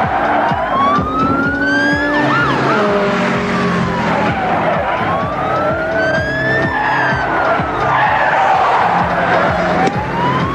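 Police siren wailing, its pitch slowly rising and falling about every four and a half seconds, over car engine noise and background music, with a short tyre squeal about two seconds in.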